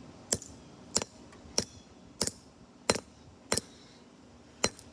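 Hammer hitting the plastic case of a PNY Turbo Attache USB flash drive lying on concrete: seven sharp cracks, about three every two seconds, with a short pause before the last. The grey case splits apart under the blows.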